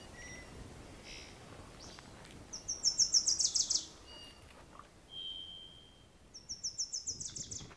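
A small songbird singing a quick series of high notes that step down in pitch, twice, about four seconds apart, with a single thin whistled note between them.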